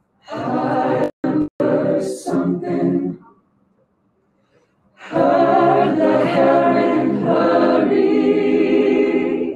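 Mixed-voice a cappella group singing in harmony: a phrase with two very brief cut-outs in the sound, a pause of about two seconds, then a long sustained chordal passage.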